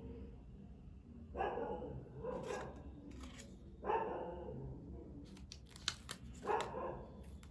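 A dog barking, three loud barks about two and a half seconds apart, with a few sharp clicks between the second and third.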